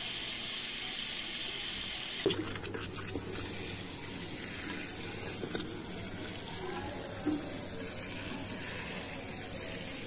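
Tap water pouring into a plastic watering can, a steady hiss that stops suddenly about two seconds in; then fainter water sprinkling from the can's rose onto the soil of potted plants.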